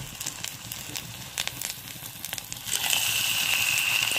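Potato and rice-flour dough balls deep-frying in hot oil in a kadai: steady sizzling with crackling pops, which grows louder about three seconds in as a second ball goes into the oil.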